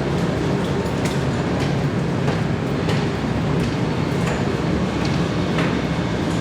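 Steady low rumbling background noise with faint regular knocks about every two-thirds of a second, like footsteps while walking.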